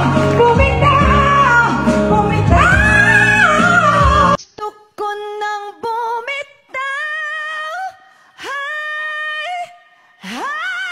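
Women belting a song into microphones over loud backing music; about four seconds in it cuts to a single woman singing unaccompanied, in short phrases and long held high notes, the last one sliding upward.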